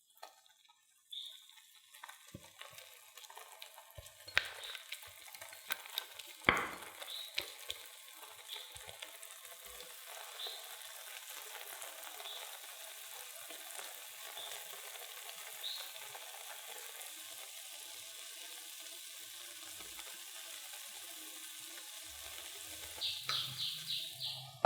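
Potato and cheese mixture frying in oil in a frying pan, a steady sizzle. A few knocks of a utensil against the pan come early, and a quick run of short squeaks near the end.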